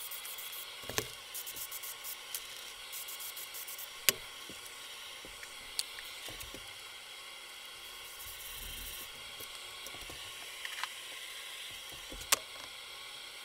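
Aerosol can of 3M Super 77 spray adhesive hissing in several short bursts as it is sprayed onto plywood, with a few sharp clicks and knocks, the loudest two about four seconds in and near the end.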